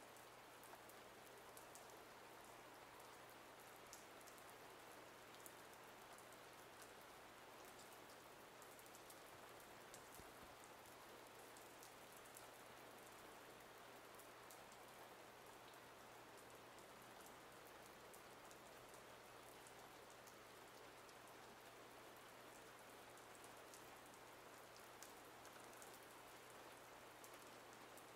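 Near silence: faint steady hiss with a low hum and a few faint ticks.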